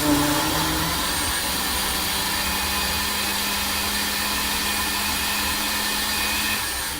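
Countertop blender motor running at a steady speed with a level hum, churning a thick load of spinach, avocado, apple and oats in liquid. It cuts off near the end.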